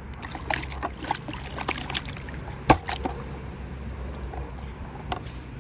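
Water sloshing and splashing in a bucket as it is rinsed out, with scattered knocks and scrapes as the bucket is handled, one sharp knock about two and a half seconds in, over a low steady rumble.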